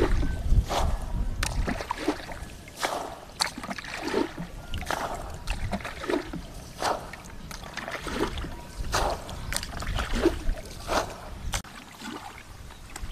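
Shallow water splashing and sloshing in irregular strokes, about one or two a second, as someone wades and gropes through it by hand for fish.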